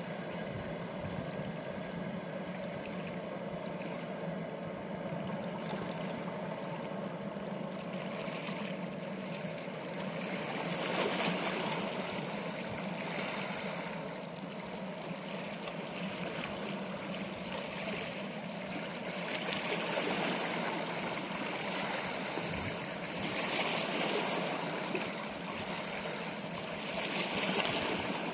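Jetfoil 'Rainbow Jet' (a Kawasaki-built Boeing 929) running, a steady hum under the rush and splash of water, with the hiss of the water swelling several times.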